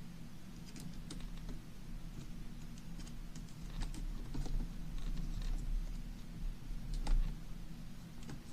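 Light, irregular clicks and taps of hands working on a disassembled laptop's plastic casing and small screws, over a low steady hum.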